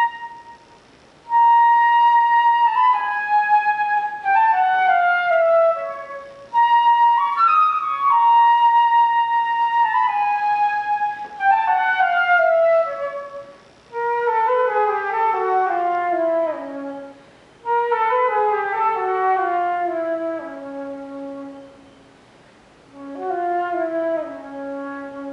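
Solo concert flute playing unaccompanied: held high notes and phrases that run downward step by step, with short pauses between phrases.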